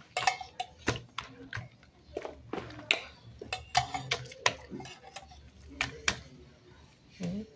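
Hands kneading soft, sticky pan de mujer dough in a plastic bowl: irregular wet slaps and smacks, a few a second, as the dough is worked and pulled off the hands and bowl.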